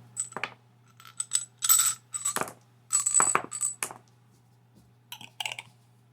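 A metal Pokémon TCG collector's tin being handled: a series of light metallic clinks and rattles in several clusters, with a few quieter ones near the end, over a faint steady hum.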